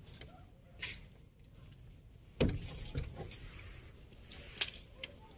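Aluminium door being handled and opened: a few light clicks and knocks, with a louder thump about two and a half seconds in.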